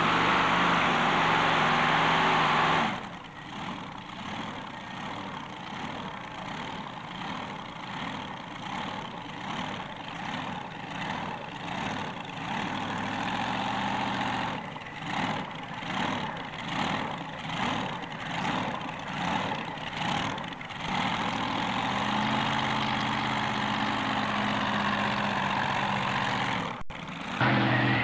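Modified pulling tractor at full throttle under load, then the throttle drops suddenly about three seconds in. The engine idles, swelling and fading about once a second, then settles to a steadier idle. Near the end a cut brings back loud full-throttle engine sound.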